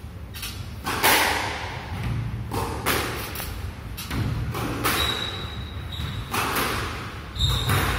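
A squash rally: the ball is struck by rackets and smacks off the court walls about once a second, each hit echoing in the enclosed court, with sneakers squeaking twice on the wooden floor in the second half.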